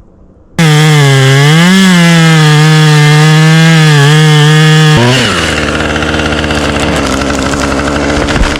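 Chainsaw starting up loud and close, running at full throttle with a steady high whine. About five seconds in its pitch drops and the sound turns rougher as the saw loads up cutting into wood.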